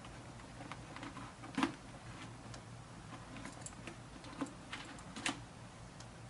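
Scattered light clicks and taps from a full-face motorcycle helmet being handled as its cheek pads are removed, with three sharper clicks standing out, over a faint steady hum.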